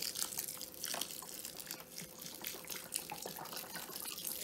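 Chicken broth pouring from a quart carton in a steady stream into a large stainless steel stockpot of dry crumbled cornbread, splashing onto the crumbs. The pour starts abruptly.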